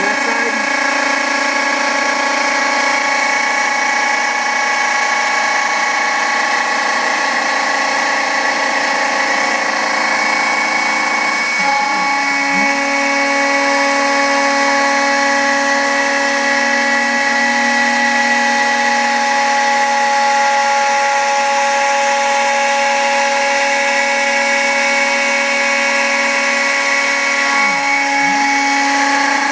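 Router with a straight bit milling a white plastic sheet: a steady motor whine with cutting noise. Its pitch dips and shifts briefly about twelve seconds in and again near the end.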